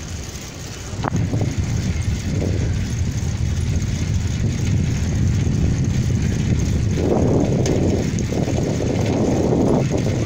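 Wind buffeting the microphone over a steady low rumble of travel along a road. There is a sharp click about a second in, and the buffeting gets louder in the last few seconds.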